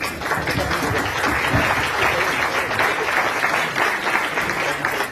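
An audience applauding: many hands clapping together, starting abruptly and keeping up a steady level.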